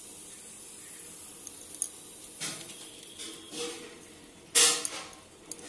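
Light handling sounds as chopped coriander is scattered by hand over dal in a cooking pot: a few soft rustles, and one louder sharp clink about four and a half seconds in.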